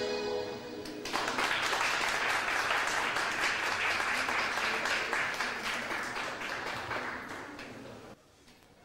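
An accordion piece ends about a second in, followed by audience applause that gradually dies away near the end.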